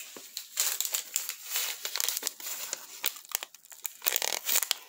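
Paper instant-oatmeal packet crinkling in the hands as it is handled and torn open, a rapid irregular crackle of paper.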